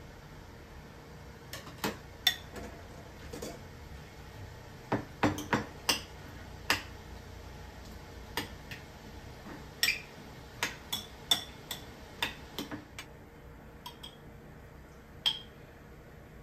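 A metal spoon clinking against a glass bowl of small cherry tomatoes: a scattered run of sharp, lightly ringing clinks and taps at irregular intervals.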